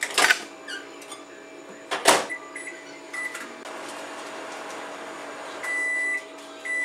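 Over-the-range microwave oven: the door clunks twice, the keypad gives a few short beeps, the oven runs briefly with a steady hum, then it sounds two long end-of-cycle beeps near the end.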